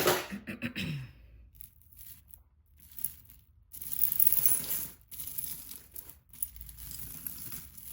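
Rummaging through a box of costume jewelry: crinkling, rustling handling noise with light clicks of pieces knocking together, loudest at the start and in a longer rustle about four seconds in.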